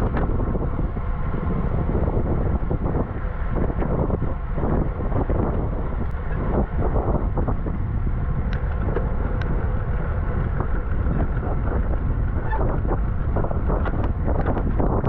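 Wind buffeting the microphone of a camera riding on a road bicycle at race speed: a loud, steady rushing noise with scattered small knocks and clicks.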